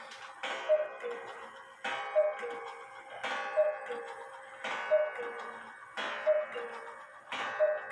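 Alexander Fleig hunter's cuckoo clock calling the hour. There are six two-note cuckoo calls, high then low, each with a ringing gong strike, about 1.4 seconds apart.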